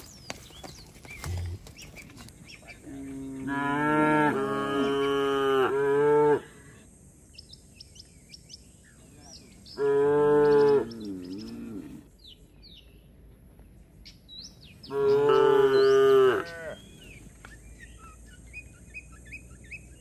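Cattle mooing three times: a long moo of about three seconds, a short one of about a second, and one of nearly two seconds. Birds chirp faintly between the calls.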